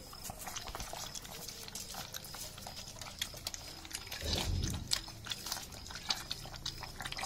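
Several Kanni puppies lapping diluted cow's milk from a bowl, many small irregular wet clicks and slurps. A brief louder, lower sound comes about four seconds in.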